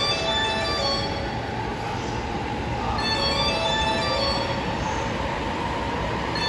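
JR East 209 series electric train pulling slowly into a station platform, its running noise steady, with a scatter of short high tones at many different pitches on top.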